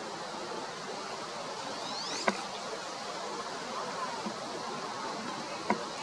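Male wood duck giving a thin, squeaky whistle that rises steeply in pitch, about two seconds in, over a steady hiss. Two sharp clicks, the loudest sounds here, come just after the whistle and again near the end.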